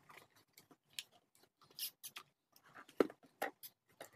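Cardboard box being handled by hand: irregular light scrapes, rustles and taps, with one louder knock about three seconds in.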